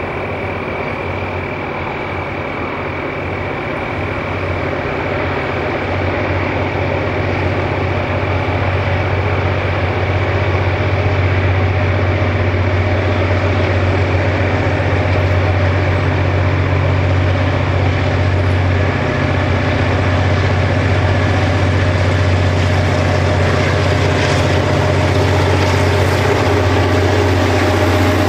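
Several diesel locomotives at the head of a container freight train, their engines running as the train approaches. The low engine drone grows louder over about the first ten seconds and then holds steady as the locomotives draw level.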